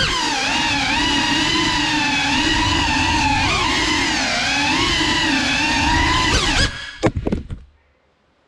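GEPRC CineLog 35 FPV cinewhoop's motors and propellers whining, the pitch wavering up and down with the throttle. About seven seconds in the whine breaks off into a few sharp knocks as the drone crashes, and the motors stop.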